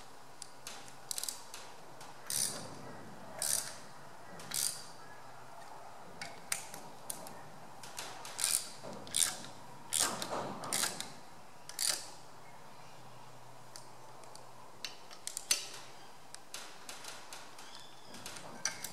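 Hand ratchet clicking in short runs, with metal clinks of the socket on the nuts, as the clamp nuts holding a compression-tester adapter in a diesel engine's injector hole are tightened down evenly.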